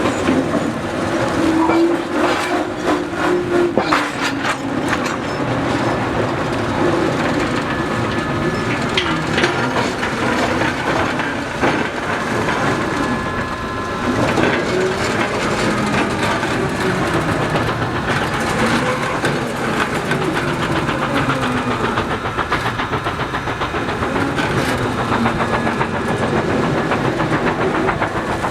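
Steam-hauled train of spoil dump cars rolling along the track, wheels clattering over rail joints with a wavering tone that rises and falls.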